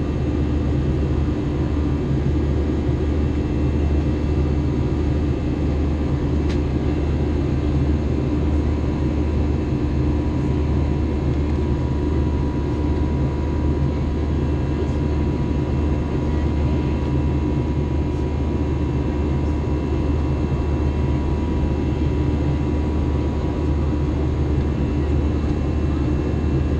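Cabin noise of an Airbus A321 airliner climbing out after takeoff: its jet engines and the airflow make a deep, even rumble with a faint steady whine on top.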